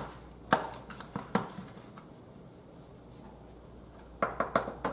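Hands working seasoning into raw chicken thighs in a metal baking pan: quiet handling with a few sharp taps and clicks, two in the first second or so and a quick run of them near the end.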